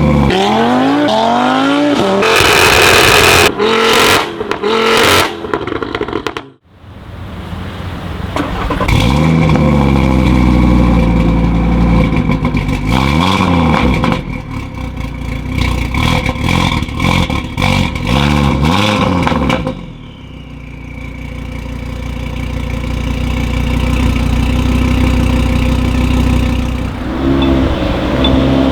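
Stage 2 tuned Audi RS3 8V's turbocharged five-cylinder engine, with an Iroz downpipe, revving. One rise in revs at the start is followed by a burst of sharp exhaust pops and crackles. After a brief drop-out there are several rev blips, each rising and falling. It settles to a low idle at about twenty seconds and revs up again near the end.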